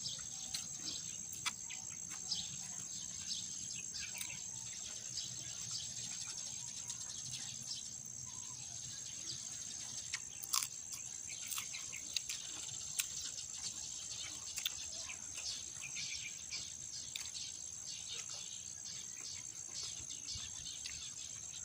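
Steady high-pitched drone of insects, typical of crickets, with frequent small clicks and taps scattered throughout.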